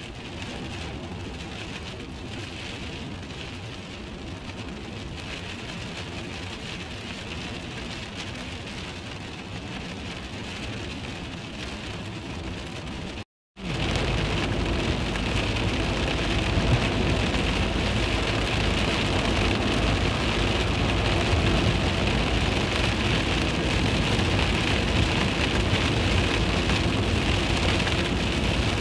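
Heavy rain and wet-road noise from inside a moving van: a steady hiss of rain and tyre spray over a low road rumble. It cuts out for a moment about thirteen seconds in and comes back louder.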